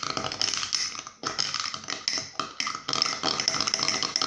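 Homemade glue slime being stirred with a utensil in a pot, a dense run of sticky, rapid clicks in three stretches with two short pauses.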